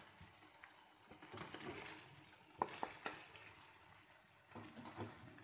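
Boiled cauliflower florets tipped into a pan of simmering masala gravy: faint bubbling and rustling, with two sharp clicks against the pan about halfway through.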